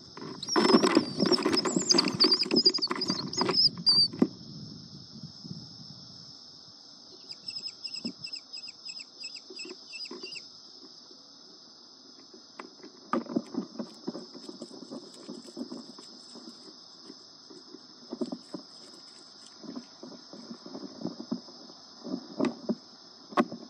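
Nestling American kestrels scuffling and scratching on the wooden floor of a nest box, loudest in the first four seconds. A run of rapid high calls comes at about eight to ten seconds in, over a steady high hiss.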